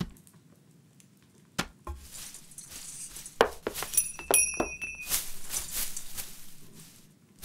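Cartoon sound effects of a cat climbing up inside a decorated Christmas tree: a few knocks, glass baubles clinking, and a short bright ring about four seconds in, then rustling of the branches.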